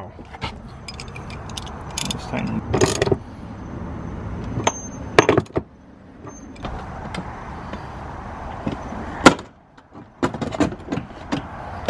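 Scattered metallic clinks and knocks from hand tools and hardware as nuts are fitted onto the seat-mount studs in a car floor, three of them sharp and loud, over a steady low hum.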